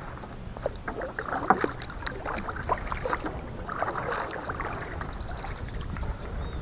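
Kayak paddle strokes: water splashing and dripping, with many small clicks and knocks, swelling twice, about a second and a half in and again about four seconds in.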